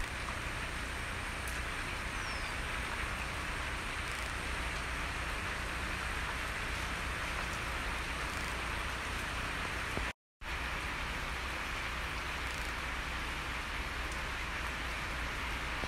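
Steady rain falling on wet ground and foliage, an even hiss. It cuts out for a split second about ten seconds in.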